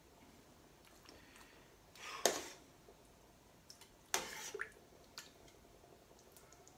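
A metal spoon scooping through thick chili in a pot, fishing for pieces of cooked beef: two louder wet scrapes about two and four seconds in, with a few light clicks between them.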